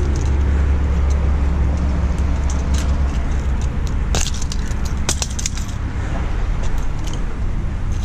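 A steady low rumble, with light metallic clicks and jingles about four to six seconds in from fishing pliers working a plug lure's treble hooks free.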